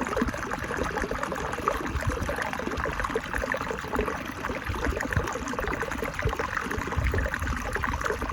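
Water trickling and splashing over rocks, a steady, uneven rush.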